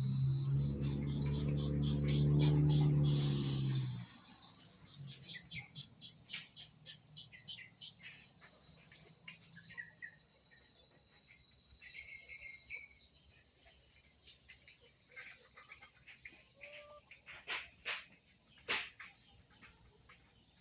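Crickets trilling steadily in a high, continuous chorus. A chicken gives a low, drawn-out call for the first four seconds, and a few sharp clicks come near the end.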